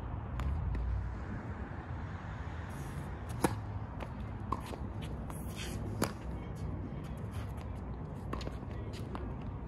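Tennis rally: a ball struck by rackets in sharp pops, the loudest about three and a half seconds in and again about six seconds in, with a medium strike between them and fainter strikes from the far end of the court. Under them runs a low steady rumble.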